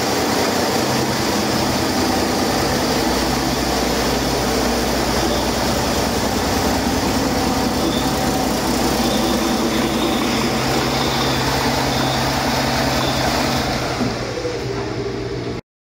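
Volvo D13H inline-six heavy-duty diesel truck engine running steadily on a test stand, a used engine with about 572,000 miles on it. The sound cuts off suddenly near the end.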